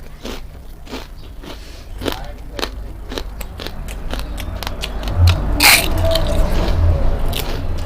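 Close-up crunching and chewing of dry Wai Wai instant noodles: quick, irregular brittle cracks, with one louder crunch a little past halfway.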